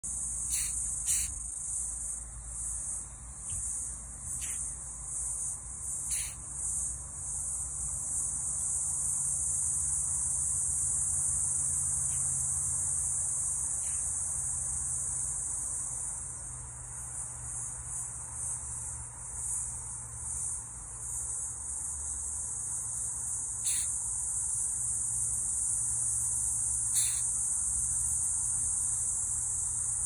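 Rhinoceros beetle hissing, a high-pitched hiss that goes on and swells and fades in level. A few short, sharp sneeze-like puffs cut through it, two close together near the start and two more near the end.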